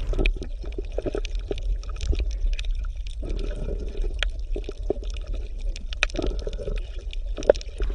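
Stream water heard underwater: a low gurgling rumble with many small, irregular clicks and ticks.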